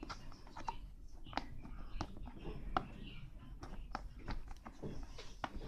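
Irregular clicks and short rustles from an action figure's toy packaging being handled and opened by hand.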